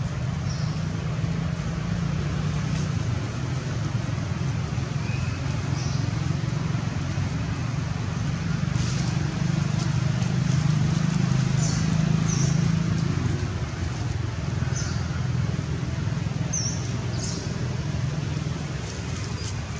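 Outdoor ambience: a steady low rumble throughout, louder in the middle, with about half a dozen short, high chirps scattered across it.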